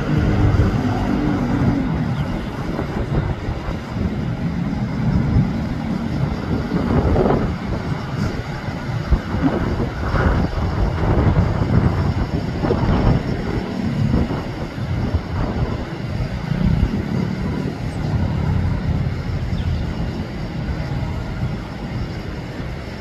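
Jet engines of an Airbus A320neo at takeoff power as it climbs away: a steady low rumble that eases slightly near the end.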